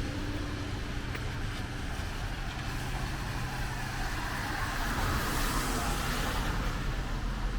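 A vehicle passing on a wet road: its tyre hiss swells to its loudest about five to six seconds in and then eases, over a steady low rumble.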